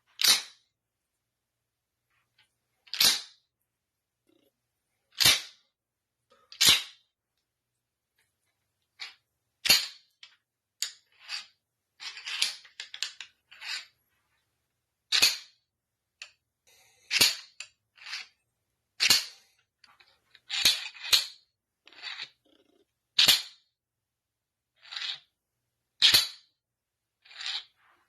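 Collapsible baton being snapped open and shut over and over: a string of sharp cracks one to three seconds apart, with a short stretch of quicker, lighter clatter about midway.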